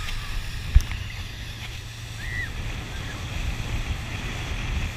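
Motorboat running at speed, wind buffeting the microphone over the rush of its wake. A single sharp knock comes a little under a second in.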